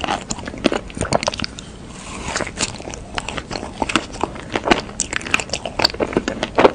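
Close-miked biting and chewing of a cookie sandwich with a thick white filling: crisp crunching and crackling chews, easing off briefly about two seconds in, with the sharpest crunch near the end.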